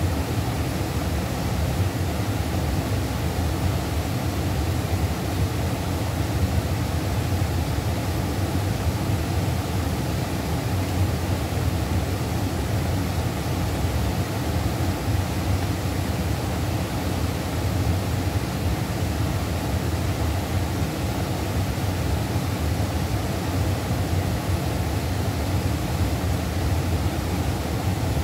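Steady rushing of a mountain river's flowing water, an even noise with a low rumble and no breaks.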